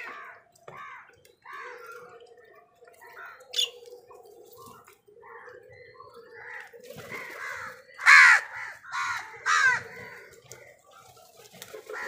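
House crows cawing again and again, with a cluster of loud caws about eight seconds in, and sharper chirps from mynas mixed in.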